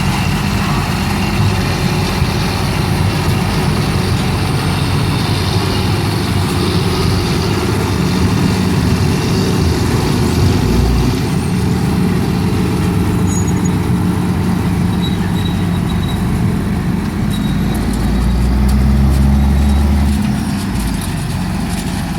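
A tractor pulling a sugar beet harvester, its heavy diesel engine and the harvester's machinery running steadily. A deeper engine rumble swells up for a couple of seconds near the end.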